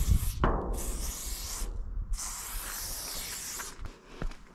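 Aerosol spray-paint can hissing in three bursts with short breaks between them, the last one the longest, as it lays down lines of paint.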